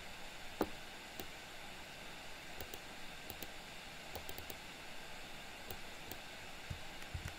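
Scattered computer mouse clicks and keyboard key presses, a dozen or so sharp clicks at uneven intervals, over a steady faint hiss from the microphone.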